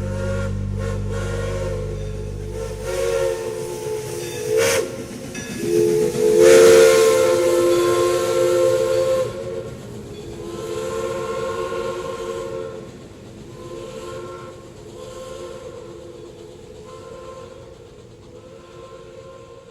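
Live-steam locomotive chime whistles sounding a series of blasts, several pitches at once. The longest and loudest blast, about six seconds in, carries a steam hiss, and the later, shorter blasts grow fainter.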